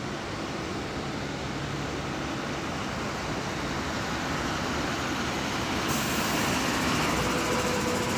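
A bus driving up and passing close by, its engine and tyres growing louder to a peak about seven seconds in, with a hiss joining suddenly about six seconds in.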